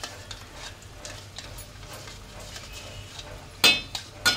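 Faint, irregular ticking and crackling from masala cooking in an aluminium pot, then two sharp metal clanks against the pot near the end, the first the louder.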